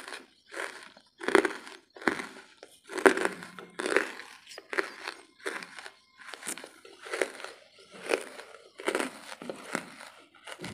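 Close-miked chewing of hard, ash-coated wood charcoal: a run of crisp crunches, about two a second.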